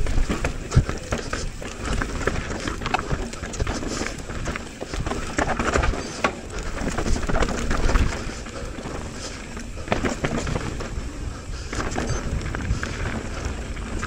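Mountain bike riding fast down a dirt downhill trail: continuous tyre and trail rumble with many sharp knocks and rattles as the bike hits bumps and roots.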